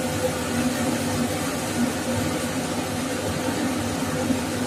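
A steady mechanical hum with a faint hiss, most likely a kitchen appliance or fan running, with a few faint soft knocks as mushroom pieces are tipped from a steel bowl into the pot.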